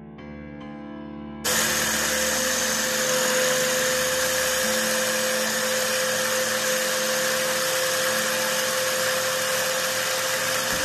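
Electric mini chopper switching on about a second and a half in and then running steadily, its motor whirring as it purées chopped onion with water.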